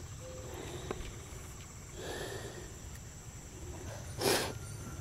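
Quiet summer garden ambience with a steady high-pitched insect drone. A short burst of noise about four seconds in is the loudest sound.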